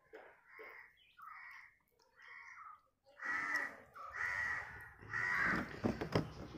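Crows cawing: a string of harsh calls about half a second each, faint at first and louder from about halfway.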